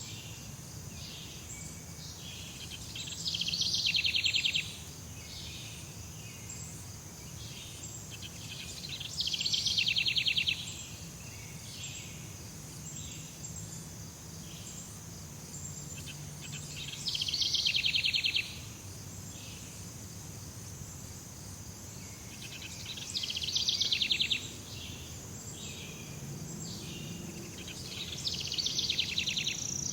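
Tropical jungle ambience: a steady high insect drone, with a louder rapidly pulsing call that comes back about every six or seven seconds, over a faint low rumble.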